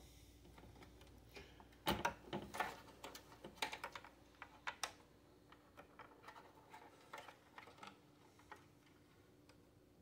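Irregular clicks and taps of parts being handled and pried inside an opened desktop PC, the motherboard being worked loose from the case. They come thickest about two to five seconds in, then thin out to scattered ticks.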